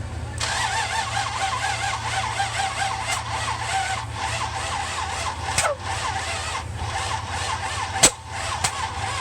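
A 1966 Buick Riviera GS's V8 cranking on the starter without catching. The pitch wavers rhythmically as the engine turns over. Sharp pops break in twice, the louder one near the end: backfire spits out of the carburettor after starter fluid was sprayed in.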